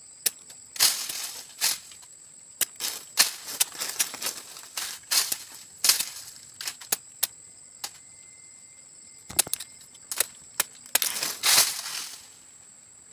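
Irregular sharp knocks and short rustling scrapes, about two dozen, as a machete and hands work at a sugar palm's flower stalk close to the microphone, with a pause about eight seconds in and a last long scrape near the end. A steady high insect whine runs underneath.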